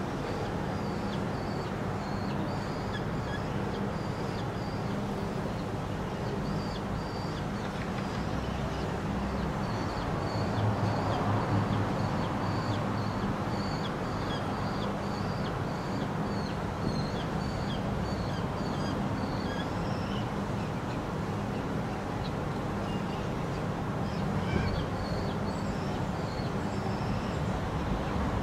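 Juvenile peregrine falcon's short, harsh food-begging calls, repeated several times a second while an adult feeds prey beside it. Underneath is a steady hum of city traffic, which swells briefly about ten seconds in.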